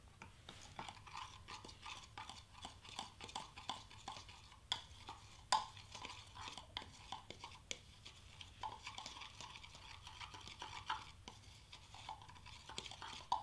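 Metal spoon stirring dry flock powder in a small glass jar: steady scraping with many quick light clinks of the spoon against the glass, one sharper clink about halfway through.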